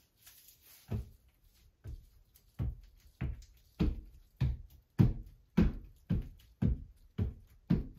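Rubber float tapped firmly against a sheet of glass mosaic tiles on a wall, about a dozen dull thumps that settle into a steady rhythm of about two a second, pressing the tiles down into the thinset.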